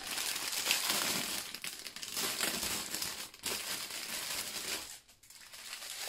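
Crinkling of the small plastic bags of diamond-painting drills as they are handled and opened, in irregular stretches with a short break about five seconds in.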